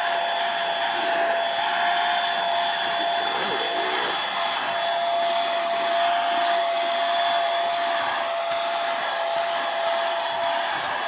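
A SHLNLI cordless handheld vacuum cleaner running at its single, high speed: a steady high motor whine over the rush of air.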